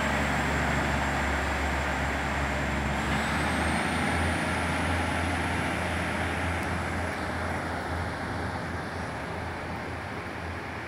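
Class 156 Sprinter diesel multiple unit pulling away, its underfloor Cummins diesel engines running with a steady low drone and a faint high whine that rises in pitch about three seconds in. The sound slowly fades as the train draws away.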